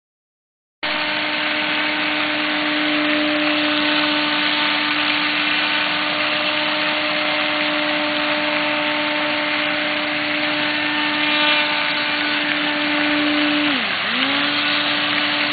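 RC airboat's motor and caged air propeller running at a steady high pitch. Near the end the pitch drops sharply and climbs back as the throttle is eased off and opened again.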